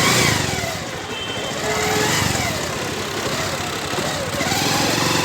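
Motorcycle engine running, its revs rising and falling several times.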